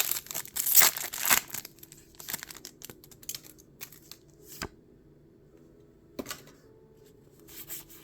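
Foil trading-card booster pack wrapper being torn open and crinkled, loudest in the first second and a half, then a few scattered light clicks and taps.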